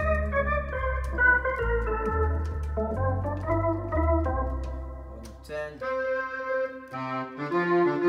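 Lowrey Sensation electronic home organ played with sustained chords on both manuals over pedal bass notes that change about once a second. About six seconds in the bass drops out briefly and the sound thins, then a brighter voice comes in near the end.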